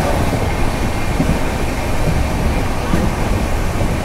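Steady rumble and rushing noise of a moving passenger train, heard from on board the coach.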